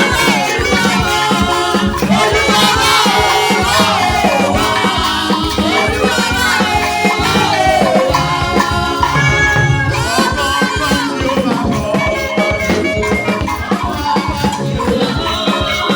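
Music with a steady percussive beat and melodic lines that rise and fall, running at a constant level.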